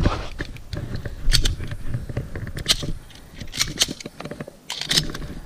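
Sharp clicks and knocks of pistol and magazine handling during a reload on the move: a fresh magazine being brought up to the gun, with gear rattle and footsteps between positions.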